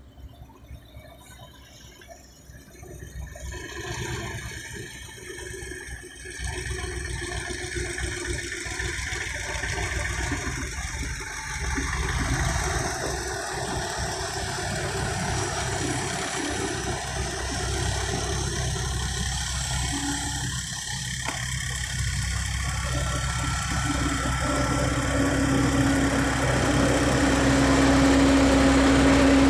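Sumitomo SH350 hydraulic excavator's diesel engine working as it digs and swings loads of soil, its rumble getting steadily louder. A steady low drone with a faint high tone joins in the last few seconds.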